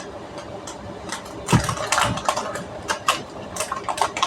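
Steady whir of a running HP ProLiant DL180 Gen9 rack server's cooling fans, with scattered clicks and rustles from a new hard disk and its packaging being handled.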